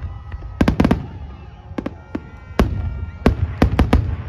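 Aerial fireworks bursting: a string of sharp bangs, several coming in quick clusters, over a continuous low rumble from the display.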